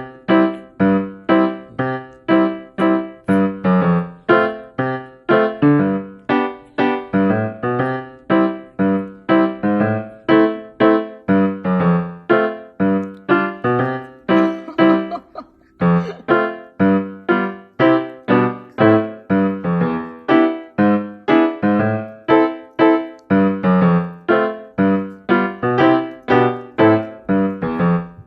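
Background piano music: a steady stream of single struck notes, about two to three a second, with a brief pause about halfway through.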